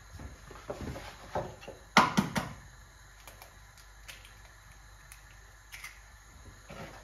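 Kitchen handling noises at the worktop as an egg carton and eggs are handled: a quick cluster of three sharp knocks and clatter about two seconds in, then a few scattered light taps.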